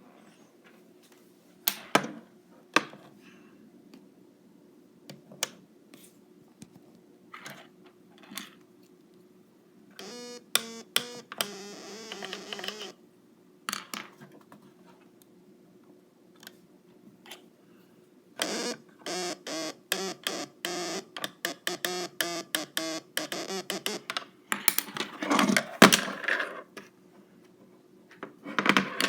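Stylophone played with its stylus, giving scattered clicks and crackles over a low hum, with only broken, stuttering notes instead of clean tones; one buzzing note holds for about three seconds near the middle, and a fast run of choppy notes follows later. The owner finds this sound abnormal and does not know why it sounds like this.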